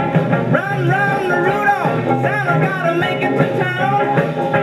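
A vocal pop record with band accompaniment playing on a 1956 RCA 7-HF-45 Orthophonic 45 rpm record player, heard through its tube amplifier and speakers with the lid closed. A singer's voice runs over guitar and rhythm.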